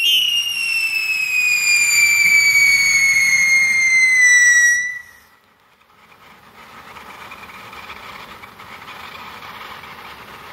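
Big Fireworks Jumbo Train fountain firework squealing: one loud whistling tone that slowly falls in pitch, then cuts off suddenly about five seconds in. After that the fountain's spray keeps up a softer, steady hiss.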